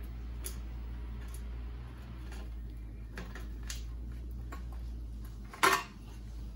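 Faint ticks and clicks as a bicycle chain guard is worked loose from the frame, then one sharp clank about five and a half seconds in as the guard comes free, over a steady low hum.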